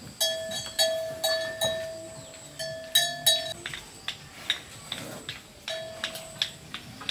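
A small metal animal bell clanking irregularly: a quick run of strikes in the first three and a half seconds, another near six seconds, each ringing on briefly, with light ticks in between.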